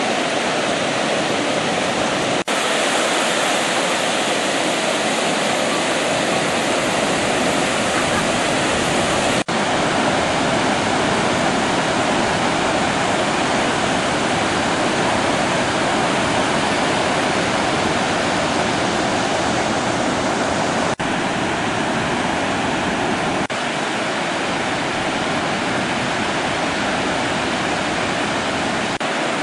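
Steady rushing noise of ocean surf, with a few brief dropouts where clips are joined.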